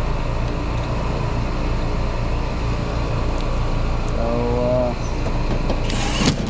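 Outdoor central air-conditioning condenser unit running with a steady low hum. A short voice-like tone comes about four seconds in, and a brief hiss comes near the end.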